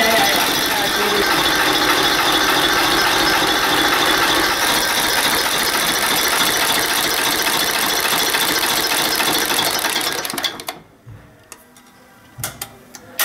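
Vintage Scania-Vabis diesel engine running steadily, then cutting off suddenly near the end, leaving a few faint knocks.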